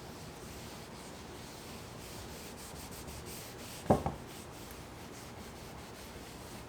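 Faint rubbing or scratching on a surface, with a sharp double knock a little past halfway.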